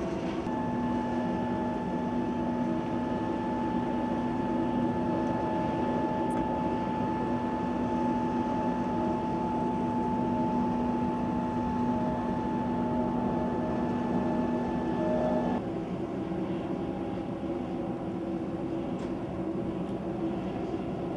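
Steady jet airliner noise: a continuous drone carrying a few steady tones that cut off abruptly about fifteen seconds in, leaving a lower, even hum.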